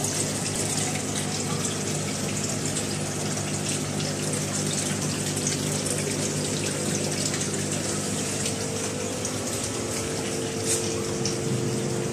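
Aquarium pump running: water rushing and bubbling out of the tank's return pipe, over the pump's low steady hum.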